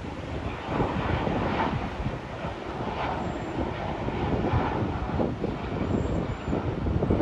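Distant jet engines of a Boeing 737 airliner on approach with its landing gear down, heard as a rumble under wind gusting on the microphone.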